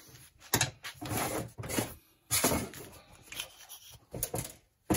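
A series of short scraping and knocking noises as the greasy outer cup of a CV axle's inner joint is worked off the shaft and ball bearings, its retaining snap ring just removed.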